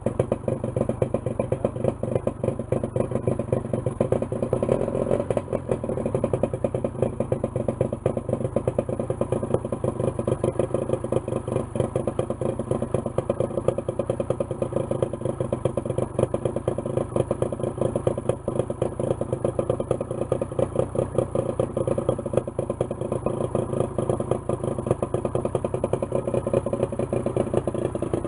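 1973 Johnson 50 hp two-cylinder two-stroke outboard motor running steadily just after a choked start, out of the water on a garden hose. The rebuilt powerhead runs with an even, rapid firing beat and a light mechanical clatter, swelling slightly a few seconds in.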